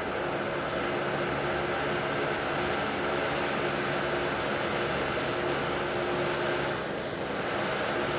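Steady droning hum of running machinery, with a constant low tone and a constant mid tone over an even background noise.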